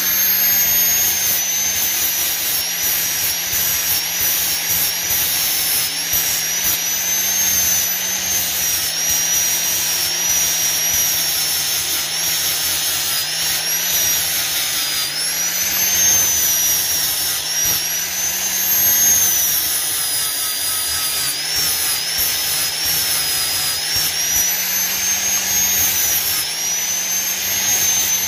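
Electric angle grinder running at full speed and grinding the steel head of a claw hammer. Its high whine sags in pitch again and again as the disc is pressed into the metal, then recovers.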